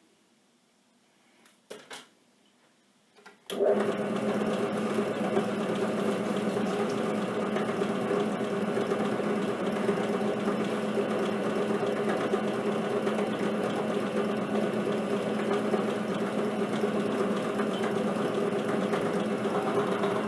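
Drill press running steadily with a diamond-tipped core drill, cutting Petoskey stone: a steady hum under an even grinding noise that comes in suddenly a few seconds in, after a couple of faint clicks.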